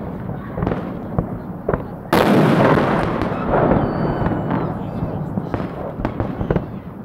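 Festive fireworks salute: a string of sharp bangs from the shells bursting overhead, with a much louder salvo about two seconds in that rings out and dies away over a second or so. Crowd voices underneath.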